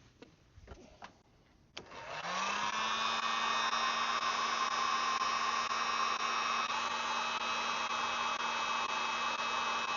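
A few faint handling clicks, then about two seconds in a heat gun switches on, its fan rising in pitch as it spins up and settling into a steady whir with a hum. It is being used to shrink red heat-shrink tubing onto a cable.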